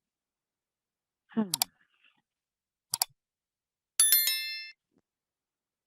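A few sharp clicks, then a click that leaves a short metallic ring dying away over under a second. Near the start there is also a brief falling pitched call.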